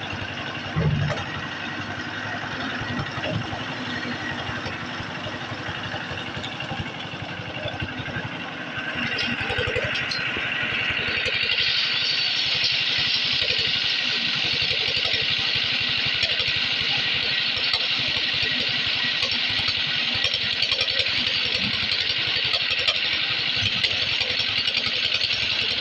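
Komatsu PC200 excavator's diesel engine running steadily, growing louder about ten seconds in with a strong high hiss as it works under load.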